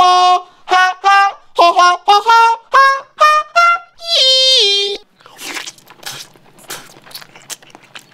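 A man's voice heavily auto-tuned, speech snapped onto flat, stair-stepped notes in short phrases, ending in a long held note that steps down in pitch. About five seconds in it gives way to faint, wet chewing and biting sounds as he eats soft tofu.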